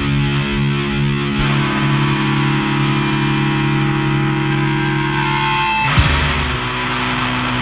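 Closing bars of an anarcho-punk song with no vocals: distorted electric guitars and bass let held chords ring out. The chord changes about a second and a half in, and again after a sharp hit about six seconds in.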